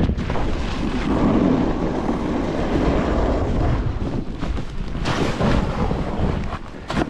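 Snowboard riding on groomed snow, its edges hissing and scraping in a steady rush, with a harsher scrape about five seconds in, under heavy wind buffeting on the microphone. The noise eases off near the end as the board slows.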